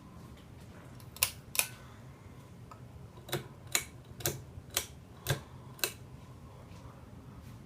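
Ceiling fan clicking: two sharp clicks close together, then six more about half a second apart, over a faint low hum.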